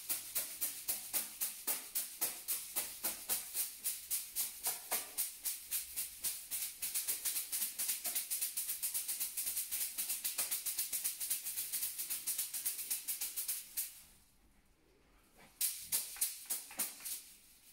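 Dry massage brooms (bundles of thin twigs) beating rapidly on a person's body, about four strokes a second, each stroke a dry rattling swish. The beating stops about fourteen seconds in and starts again briefly near the end.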